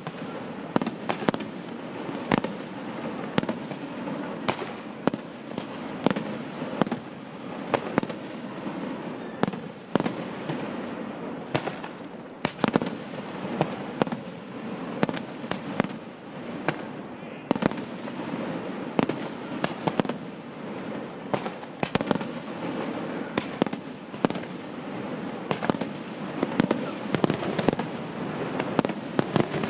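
Fireworks display: aerial shells bursting in a continuous run of sharp bangs, roughly one or two a second, over an unbroken dense din of crackling and fizzing stars.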